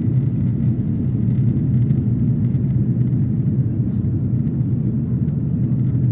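Steady deep rumble of engine and airflow noise inside the cabin of an Airbus A330-300 climbing out after takeoff, heard from a window seat over the wing.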